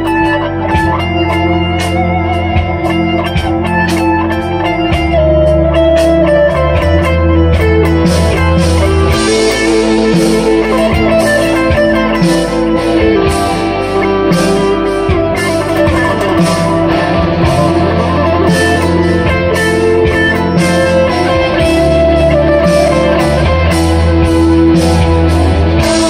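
Electric guitar improvising picked lead lines through a Framus Dragon amplifier, over steady low bass notes that change every few seconds.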